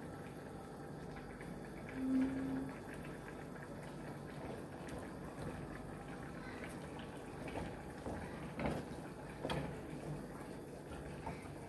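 Pieces of liver cooking in a non-stick frying pan with a quiet, steady bubbling sizzle, while a spatula scrapes and taps against the pan a few times near the end. A brief low hum sounds about two seconds in.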